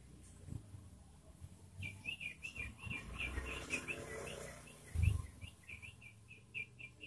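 Yellow-vented bulbul (trucukan) singing a fast run of short chirping notes, several a second, starting about two seconds in. A dull low thump sounds about five seconds in.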